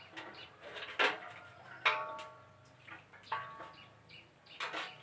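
A few sharp knocks and clinks, two of them ringing briefly, over faint birds chirping in the background.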